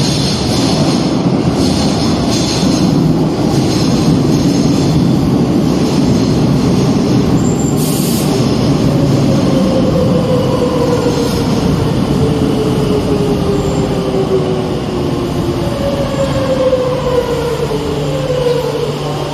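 Madrid Metro train running through the station with a loud steady rumble of wheels on rails and a few knocks early on. From about halfway a whine slides steadily down in pitch as the train slows.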